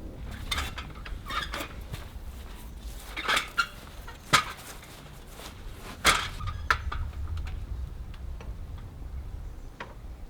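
Scattered sharp taps and clinks of a steel trowel and bricks, the strongest about four and six seconds in. This is the sound of corner bricks being set and tapped into level.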